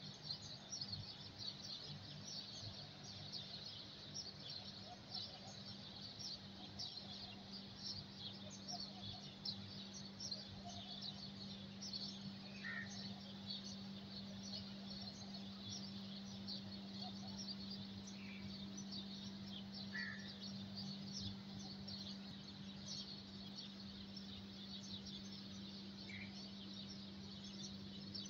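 Faint outdoor chorus of many small birds chirping, dense and irregular, with a few clearer single calls now and then and a steady low hum underneath.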